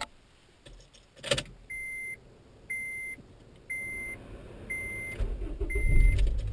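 A Honda Accord's warning chime beeping steadily about once a second inside the cabin, after a knock at the start and another about a second in. Near the end a low engine rumble rises as the car starts.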